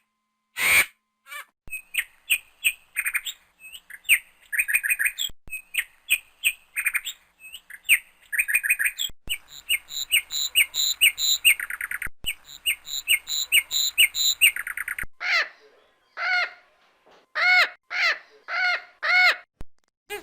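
Bird sound effects: a long run of quick, high chirps and tweets, then, about 15 s in, an abrupt change to a series of louder, harsher squawking calls, each rising and falling in pitch, about one or two a second.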